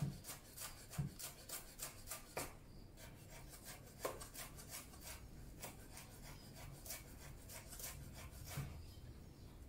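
Chef's knife chopping spring onion on a wooden cutting board: a fast run of faint, light taps of the blade against the wood, about three or four a second.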